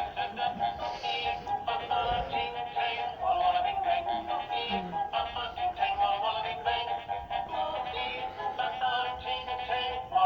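Gemmy animatronic Halloween pirate dog singing its song through its small built-in speaker: a recorded voice over music with a steady beat. It sounds thin, with little bass.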